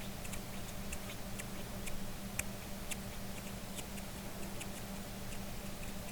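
Lids of metal and glass being handled and tapped: light, irregular small clicks, a few every second, with a sharper one about two and a half seconds in, over a steady low hum.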